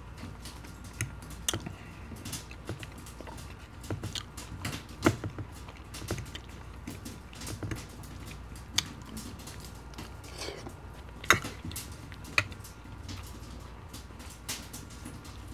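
Close-miked eating of poutine: chewing and wet mouth sounds, with a metal fork clicking and scraping against a ceramic baking dish. Small clicks come irregularly throughout, with a few sharp louder ones, the loudest about two-thirds of the way in.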